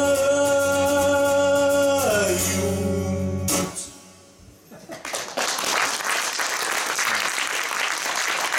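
A man's voice holds a long final sung note over acoustic guitar, sliding down in pitch about two seconds in, and the music stops sharply about a second later. After a brief hush, audience applause starts about five seconds in.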